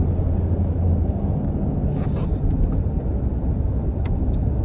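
Steady low road and engine rumble inside a moving car's cabin, with a few faint clicks about two seconds in and again near the end.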